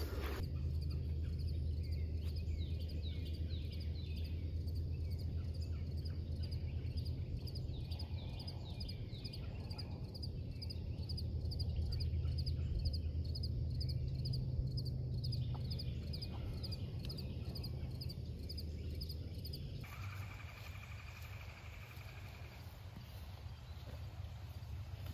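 Outdoor ambience of birds calling over a steady low rumble, with a rapid, even high-pitched ticking through most of it. About twenty seconds in the sound changes abruptly, and a thin high tone runs for a few seconds.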